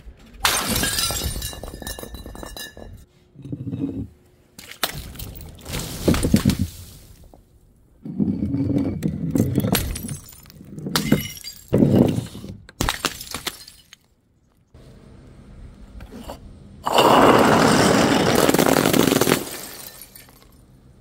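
Glass bottles being smashed: a series of separate crashes and crunches, with shards ringing after the first. Near the end comes a longer, louder stretch of continuous crashing that lasts a couple of seconds.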